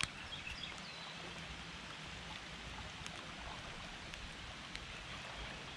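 Steady hiss of rain falling on and around a creek, with the water's flow mixed in. A brief click right at the start.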